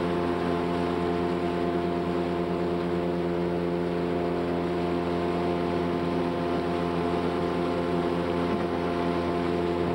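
Small outboard motor running steadily at planing speed, one unchanging pitch, with a constant hiss of water and wind.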